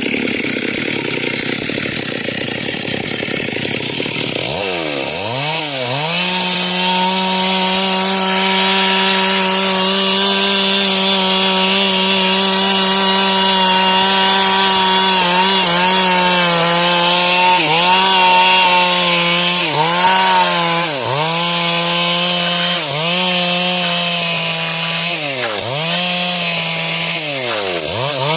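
Stihl MS 382 two-stroke chainsaw cutting dry wood: the engine revs up about five seconds in and runs steadily at high speed, then its pitch dips briefly and recovers many times in the second half.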